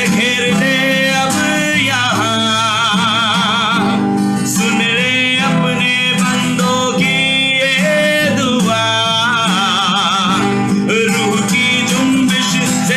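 Live Hindi worship song: a singer holding long notes with vibrato over band accompaniment.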